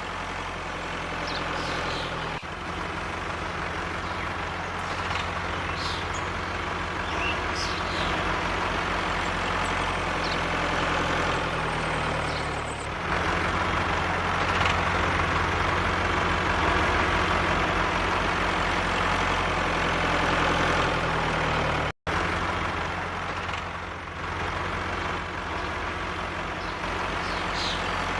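Tractor engine running steadily, louder from about halfway through, with a momentary dropout about two-thirds of the way in.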